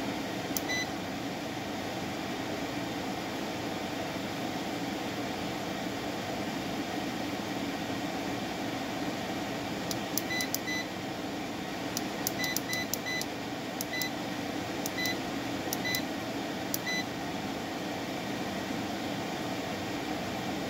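Short high electronic beeps from the B&H CW-5200 chiller's digital temperature controller as its buttons are pressed: two near the start, then a run of about a dozen from about ten to seventeen seconds in. Under them the chiller runs with a steady hum.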